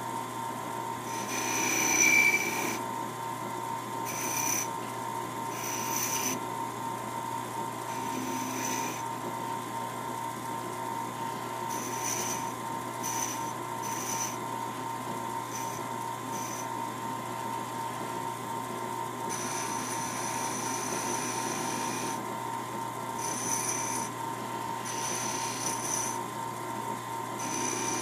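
Wood lathe running with a steady hum while a small hand-held tool is held against the spinning rosewood piece with its silver wire inlay, scraping in short spells every few seconds, loudest about two seconds in.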